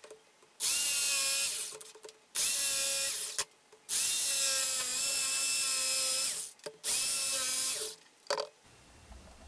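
Ryobi corded jigsaw cutting a notch into a luxury vinyl plank, running in four bursts with short stops between them, the third and longest about two and a half seconds. Short clicks come before and between the cuts.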